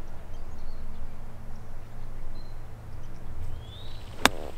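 A golf club strikes the ball once near the end: a single sharp crack. Before it there is a quiet outdoor background with a few faint bird chirps.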